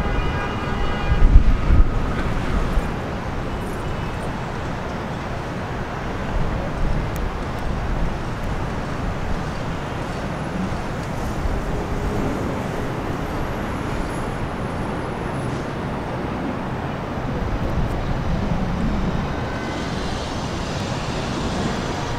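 Steady outdoor rumble and hiss of a diesel-hybrid locomotive running, blended with city traffic noise. There are a few loud low bumps on the microphone in the first two seconds.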